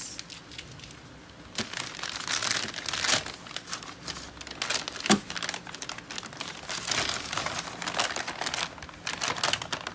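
Parcel packaging crinkling and being torn open by hand, in a continuous run of irregular crackles.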